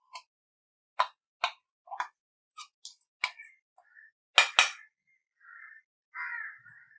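Kitchen utensils clinking: a spoon knocking and tapping against a vessel as ground ingredients are tipped in, a series of sharp clicks with the two loudest close together about halfway through, followed by brief soft scraping.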